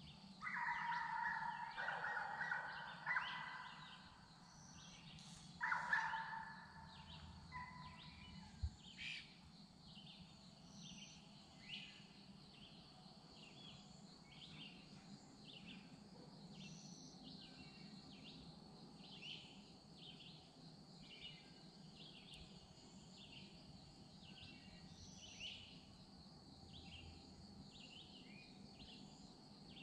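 Birds and insects: a loud drawn-out bird call in the first few seconds and another around six seconds in, then a bird repeating a short chirp about once a second over a steady high insect drone. One dull thump sounds about nine seconds in.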